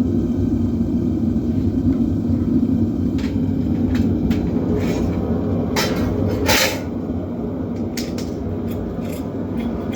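Metal-melting furnace running with a steady low rumble while brass melts in it. A few short knocks and clatters come over it, the loudest about six and a half seconds in.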